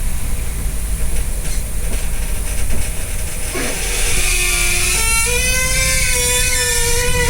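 LiAZ 6213 articulated bus's articulation joint creaking loudly over the steady running noise of the bus. About halfway through, the creak rises into a drawn-out, wavering squeal that holds on.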